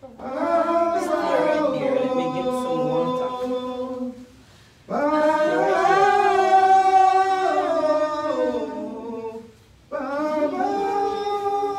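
Unaccompanied singing in three long, drawn-out phrases with short pauses between them.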